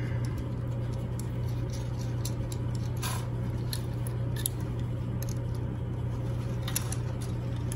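Sparse small metallic clicks and ticks from a Floyd Rose tremolo bridge being handled as its original screw-in arm mount is worked out, the clearest about three seconds in, over a steady low hum.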